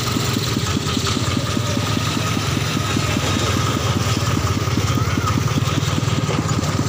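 Engine driving a sugarcane juice crusher, running steadily with a rapid, even beat.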